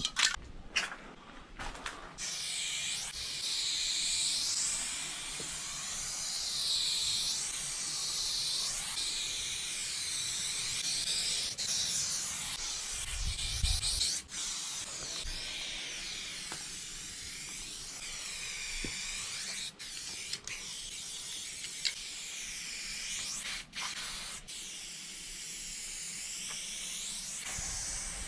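Aerosol spray-paint can hissing in long continuous strokes, its tone sweeping as the nozzle moves along the wall, with a few short breaks between strokes. It opens with a few knocks as a can is taken from a box of spray cans.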